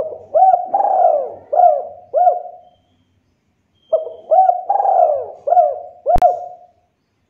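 Spotted dove cooing: two phrases of about five rhythmic coos each, separated by a pause of about a second. A sharp click sounds near the end of the second phrase.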